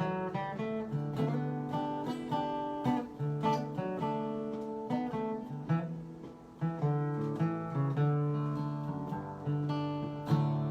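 Acoustic guitar playing the instrumental intro to a bluegrass gospel song, plucked and strummed notes in a steady rhythm.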